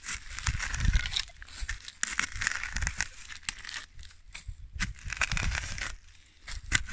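A shovel digging into forest soil, in about four irregular bouts of the blade scraping and crunching through dirt, roots and dry leaves, with dull thumps as it strikes and soil is thrown aside.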